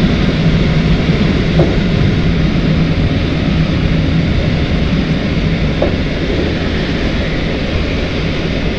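Steady rush of airflow inside the cockpit of an L-23 Blaník glider climbing on aero-tow, with the tow plane's engine droning under it as a low steady hum.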